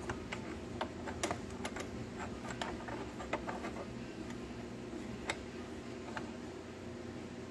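Light metallic clicks and taps from small steel shifter parts being fitted by hand onto the shift rails inside a Tremec TR3550 transmission case. There are about a dozen irregular clicks, most in the first three and a half seconds, with a couple of sharper ones later on.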